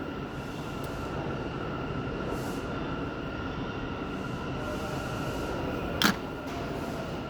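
Subway train noise in the station: a steady rumble with steady high tones over it, and one sharp clack about six seconds in.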